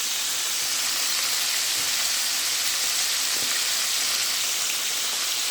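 Chicken pieces frying in hot oil in a pan on the stove, a steady sizzle held through.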